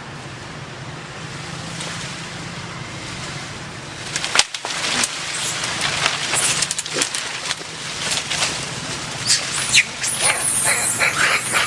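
Outdoor wind and ambient noise, then from about four seconds in a run of scuffles and sharp clicks. Near the end come high squeals that bend up and down, from monkeys.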